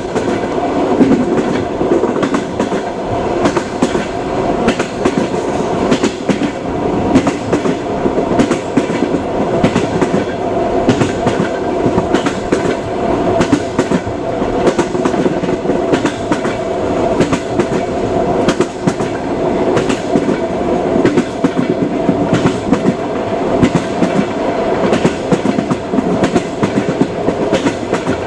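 Moving train: a steady rumble and hum with a constant clickety-clack of the wheels running over rail joints.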